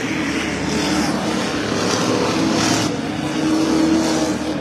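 A pack of stock cars racing on an oval short track, several engines running hard together. The sound swells twice as cars go by.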